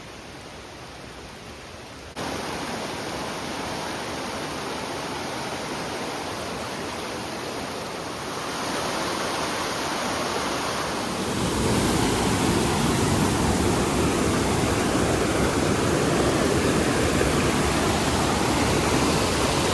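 Waterfall rushing: a steady wash of falling water that gets louder in sudden steps, about two seconds in and again about eleven seconds in.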